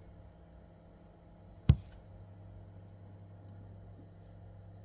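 A single sharp knock about two seconds in, over a faint steady low hum.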